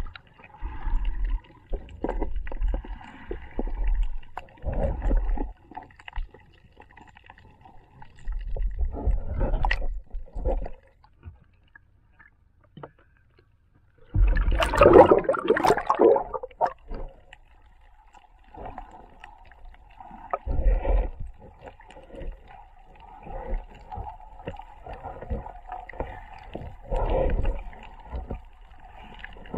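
Muffled water movement picked up by an underwater action camera's microphone: irregular low thuds and sloshing as it is swept through the water, with a louder splashing rush about fourteen seconds in as the camera breaks the surface.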